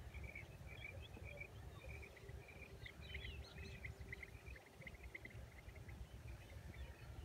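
Faint birds chirping in quick, short notes, busiest about halfway through, over a low steady rumble of outdoor background noise.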